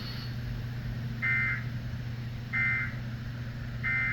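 Emergency Alert System end-of-message signal: three short digital data blips about 1.3 s apart, the coded tones that close the alert, over a steady low hum.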